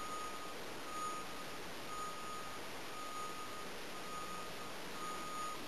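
A faint electronic beep, about half a second long, repeating once a second over a steady hiss.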